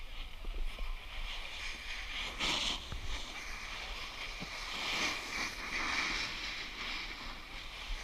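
Snowboard edges scraping over packed snow as a rider skids side to side down the slope, the scrape swelling about two and a half seconds in and again around five to six seconds in, over a low wind rumble on the microphone.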